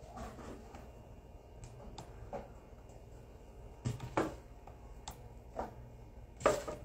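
Scattered small knocks and clatters of objects being handled and set down while searching for something to prop up a piece, more frequent in the second half, with the loudest knock near the end.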